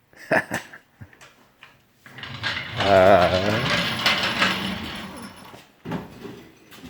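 A 1982 Mazda RX-7 rolling on its freshly fitted wheels. There are a few knocks near the start, then a few seconds of rough rolling noise with a wavering creak in the middle.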